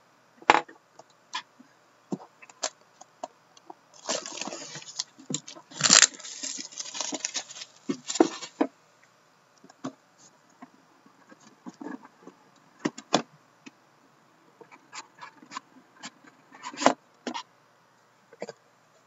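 A cardboard box of 2015 In The Game Superlative Hockey cards being handled and opened on a table: scattered taps and knocks, with a longer stretch of scraping and rustling from about four to eight seconds in.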